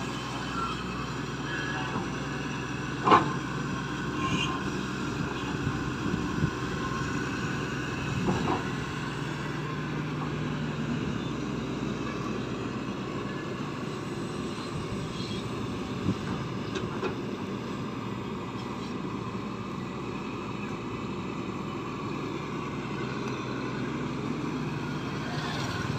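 Matador Shantui ME210 C-1 hydraulic excavator's diesel engine running steadily while it digs mud, with a few sharp knocks, the loudest about three seconds in.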